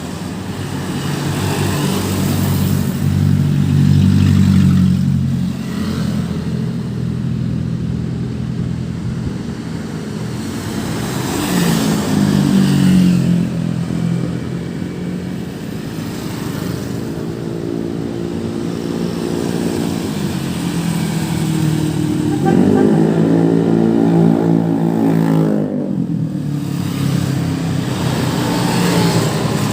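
Busy road traffic passing close by: a stream of vehicles and motorcycles with heavy engines swelling and fading as each goes past. A couple of them rise in pitch as they accelerate, around twelve seconds in and again near the end.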